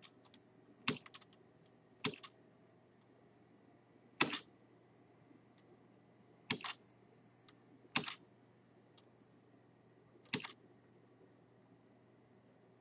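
A few short, sharp clicks, about one to two seconds apart, some in quick pairs.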